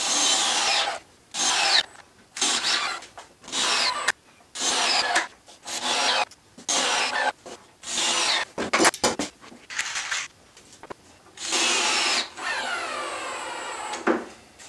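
Cordless drill-driver driving 2-inch Torx screws through the top into the frame, in a string of about ten short bursts. Near the end comes one longer run in which the motor's pitch sinks as the screw pulls down tight.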